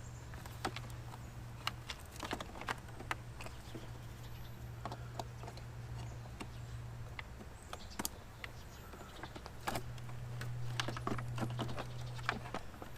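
Scattered small clicks and taps of plastic motorcycle headlight-housing parts, connectors and clips being handled and fitted, over a steady low hum.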